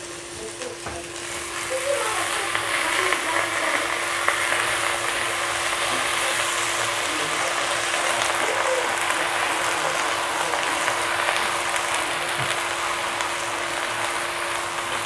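Raw chicken pieces sizzling as they are dropped by hand into hot oil with fried onions and chillies in a clay pot. The sizzle swells over the first couple of seconds as more chicken goes in, then holds steady.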